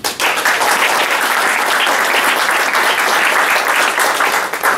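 Audience applauding: dense, steady clapping from many people that starts all at once.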